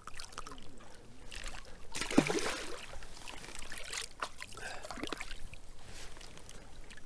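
Water trickling and lapping at the water's edge, with scattered small clicks and knocks and a brief louder rush of noise about two seconds in.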